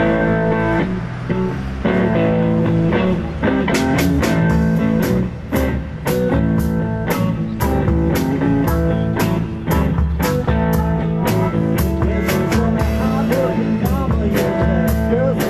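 Live blues band playing an instrumental passage: electric guitar over a drum kit, with the drummer's sharp cymbal strokes coming in about four seconds in and keeping a steady beat of about three a second.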